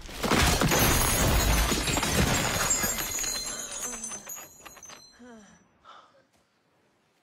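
A loud crash with shattering and breaking as robot drones and rubble smash apart. It thins into scattered clattering and clinking debris and dies away to near silence.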